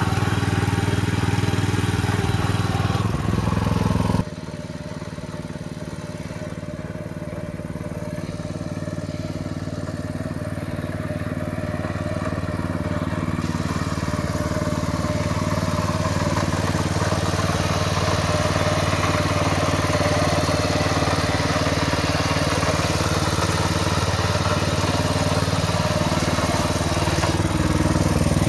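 Small engine of a walk-behind power tiller running steadily while it pulls a ridging plough through the soil between crop rows. The sound drops abruptly about four seconds in, then grows gradually louder as the machine comes closer.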